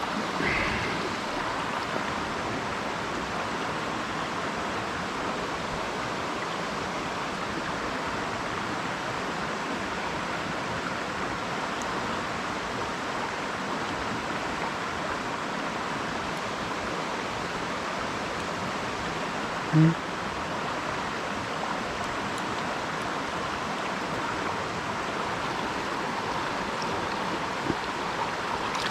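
Small mountain stream rushing steadily over rocks. About two-thirds of the way in there is one short, low sound.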